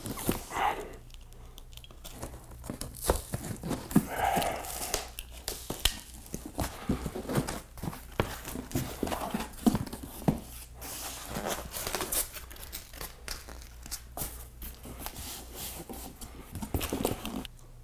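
Speaker packaging being handled: a cardboard box, white foam inserts and plastic bags rustling, with many small knocks and clicks scattered irregularly throughout.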